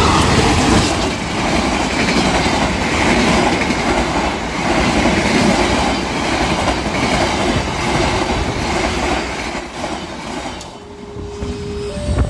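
KAI CC201 diesel-electric locomotive and its passenger coaches passing close by, wheels clattering in a steady rhythm over the rail joints. The noise falls away about ten and a half seconds in as the train moves off, and a few steady musical tones come in near the end.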